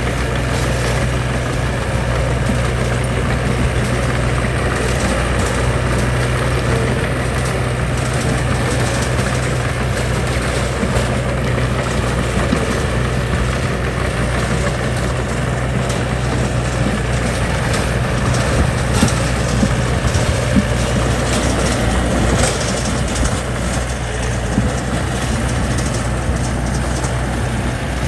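Heavy diesel construction-machine engine running steadily, with a low hum throughout and a few knocks about two-thirds of the way in.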